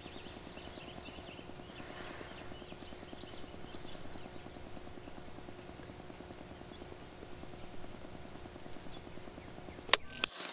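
Crossbow shot at a whitetail buck: a sharp snap of the release, then about a third of a second later a second crack as the bolt strikes the deer, near the end. Before that only a faint steady background hum.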